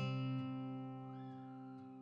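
Background music: a guitar chord rings out and slowly fades.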